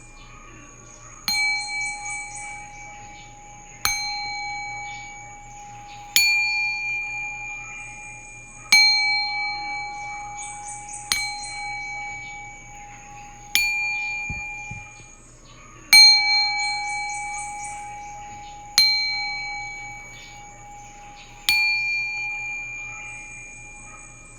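Singing bowl struck with a mallet about every two and a half seconds, nine strikes in all. Each strike rings on with several steady overtones that slowly fade, overlapping the next strike.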